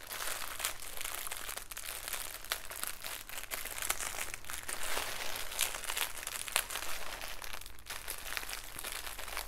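Plastic packaging crinkling and crackling as a bundle of small bagged diamond-painting drills is handled and pulled open, a steady run of quick crackles.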